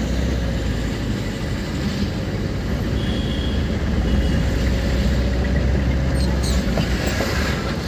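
A vehicle travelling along a road: a steady low engine-and-road rumble under an even haze of traffic noise.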